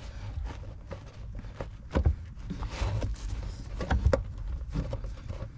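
Hand-handling noise of an oxygen sensor's wiring being seated: scattered rustles, light clicks and knocks, with sharper knocks about two seconds and four seconds in.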